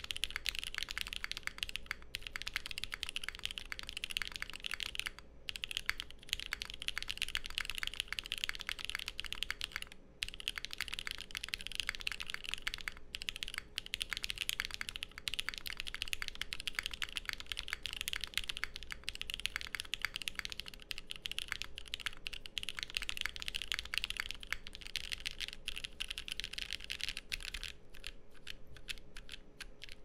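Fast, continuous typing on a Keycult No. 2/65 custom mechanical keyboard: Auralite linear switches lubed with 205g0, an aluminium plate and GMK doubleshot keycaps, with a few brief pauses in the key strokes.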